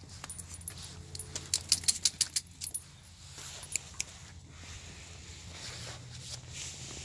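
Small metal pieces jangling in a quick run of sharp clinks, densest about one to three seconds in, with two more clinks near four seconds.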